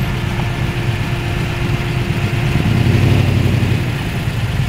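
Muscle car engine running at low speed as it rolls past, the rumble swelling about two and a half seconds in and easing off near the end.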